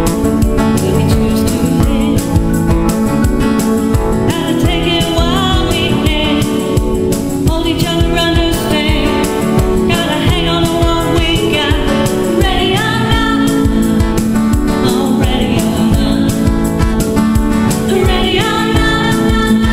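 A song: a singing voice over instrumental backing with a steady beat.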